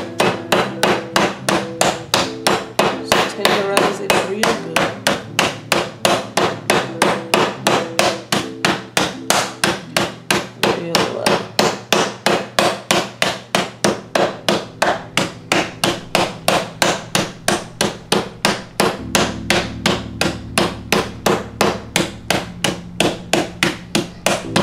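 Metal meat tenderizer mallet pounding chicken thighs through a plastic zip-top bag on a wooden cutting board, in quick, even blows about four a second.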